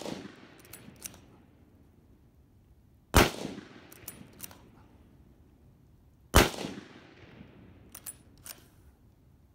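M1917 Enfield bolt-action rifle firing .30-06: two loud shots about three seconds apart, each trailing off in echo, with the end of an earlier shot at the very start. A few sharp clicks after each shot are the bolt being worked to chamber the next round.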